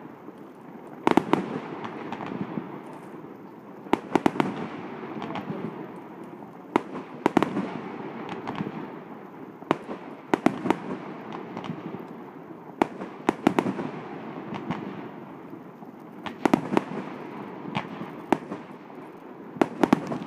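Aerial fireworks shells bursting. Sharp bangs come every one to three seconds, some in quick runs of several reports, over a steady low rumble between them.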